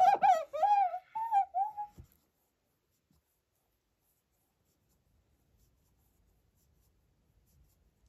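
A string of short, high whining calls from an animal, each bending up and down in pitch, lasting about two seconds.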